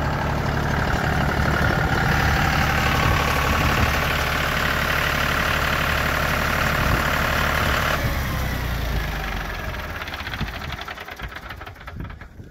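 2006 John Deere 5103 utility tractor's three-cylinder diesel engine idling steadily, loudest in the middle, then fading away near the end.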